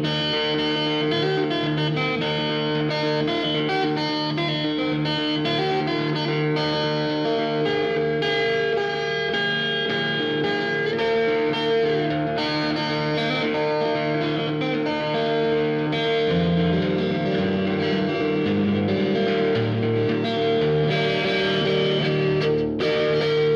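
Background music: a guitar-led instrumental with long held notes.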